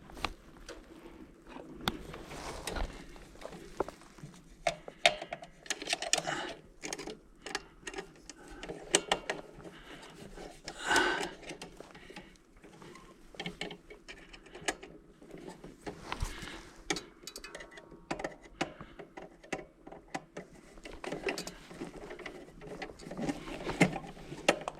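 Irregular clicks, taps and metallic scraping of hand work inside an electrical panel: conductors being worked onto the neutral and ground bars and the terminal screws tightened with a screwdriver.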